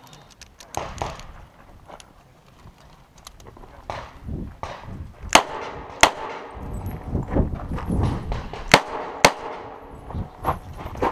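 Semi-automatic pistol fired close up in two pairs: two shots about two-thirds of a second apart a little past five seconds in, then two about half a second apart near nine seconds. Fainter cracks follow near the end, with scuffing between the shots.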